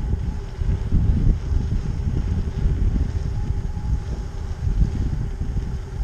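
Wind buffeting the microphone of a camera on a moving bicycle, a low rumble that rises and falls in gusts, with a faint steady hum beneath it.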